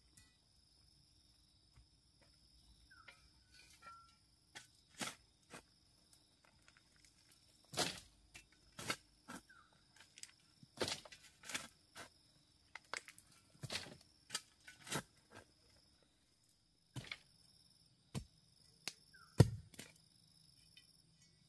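Irregular sharp knocks and thuds from a hand tool striking, a dozen or more at uneven spacing, the loudest near the end, over a steady high drone of insects.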